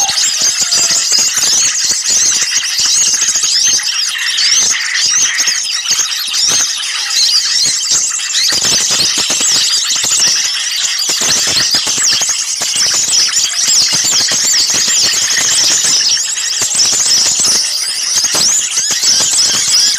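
A dense, noisy chorus of many small songbirds chirping and twittering at once, high-pitched and unbroken: a bird-lure (pikat) recording of agitated small birds, used to draw other small birds in.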